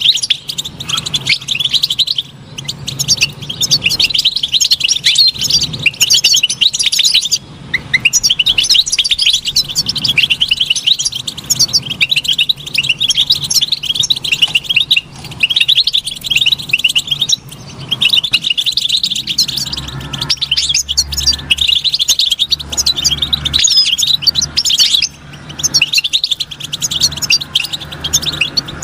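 European goldfinch song: fast, continuous twittering of high chirps and trills, broken by a few brief pauses.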